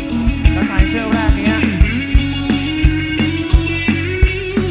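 Live band playing a Thai pop-rock song: a male lead vocal over electric guitar, bass and a steady kick-drum beat.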